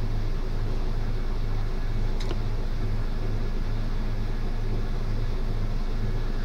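A steady low hum, like a fan or motor running, with one faint click about two seconds in.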